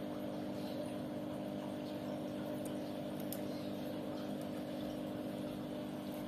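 Steady background hum of several fixed low tones, unchanged throughout, with two faint ticks near the middle.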